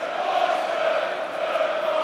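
Football stadium crowd chanting in unison, thousands of supporters holding a sung note.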